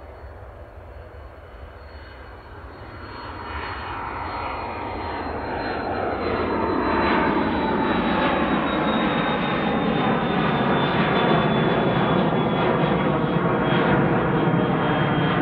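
Cessna Citation Excel business jet's twin turbofan engines at take-off power on climb-out. The roar grows louder over the first several seconds, then holds, with a high whine that slowly falls in pitch.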